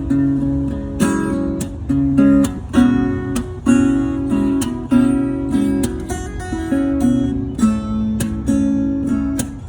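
Acoustic guitar strummed and picked in an instrumental break, with chords struck about once or twice a second.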